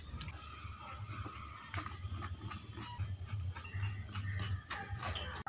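Metal utensil scraping the soft flesh out of a split young coconut shell in quick, repeated strokes, starting a couple of seconds in.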